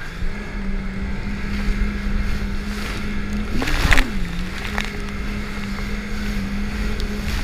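Jet ski engine running fast at a steady pitch under wind and spray noise. About three and a half seconds in, the engine briefly rises and falls in pitch, with a loud burst of splashing water as the hull hits a wave.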